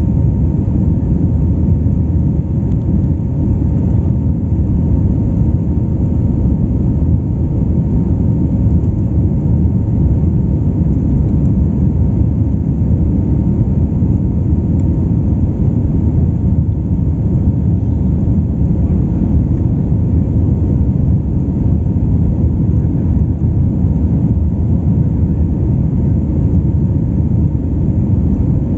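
Airbus A320 cabin noise in flight, heard from a window seat over the wing: a steady, dense low rumble of engine and airflow noise with a faint steady whine above it.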